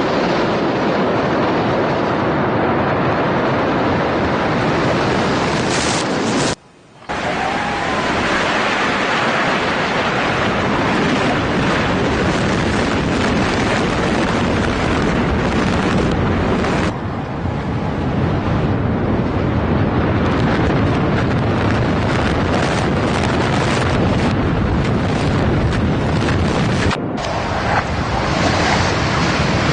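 Controlled building demolitions: a loud, continuous rumbling roar of collapsing structures and falling debris, mixed with wind noise on the microphone. The sound breaks off briefly about seven seconds in and again near the end, where one demolition clip gives way to the next.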